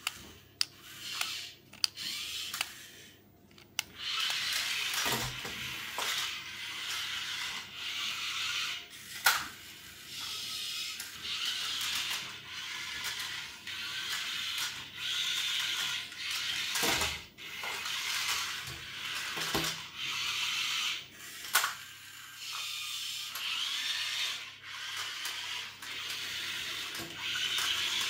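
Small electric motors and plastic gearing of a remote-control transforming toy car whirring in repeated bursts of a second or two with short gaps, as it converts into a robot and moves on tile. A few sharp clicks come in the first few seconds.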